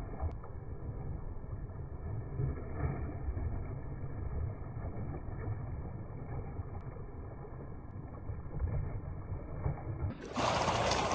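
Muffled, steady low rumble of pond water churning and splashing at the surface as fish feed, heard with all the higher sounds cut off.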